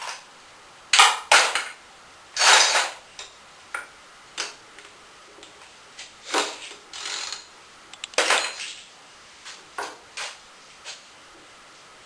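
Metal tools and small engine parts clinking and clattering as an engine is taken apart: a string of sharp knocks at irregular intervals, some short, some a rattle lasting about half a second.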